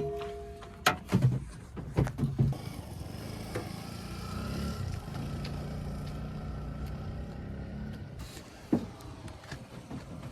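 Backhoe loader's diesel engine running steadily, with several sharp metallic clanks in the first couple of seconds and another near the end, and a faint whine in the middle.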